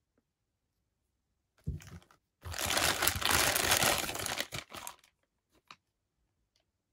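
Clear plastic packaging bag crinkling as a plastic figure's body is pulled out of it: a short rustle, then about two and a half seconds of continuous crinkling. A few light clicks follow near the end.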